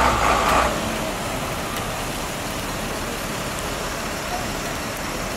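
Motor vehicle running on a wet, flooded road: a steady wash of noise, louder for the first second or so.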